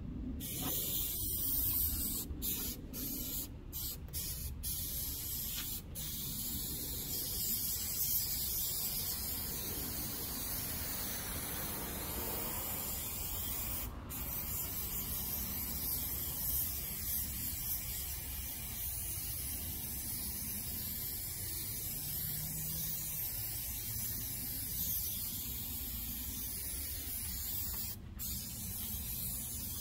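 Aerosol spray adhesive hissing from the can in long, nearly continuous passes, with short breaks several times in the first few seconds and once or twice later as the nozzle is released.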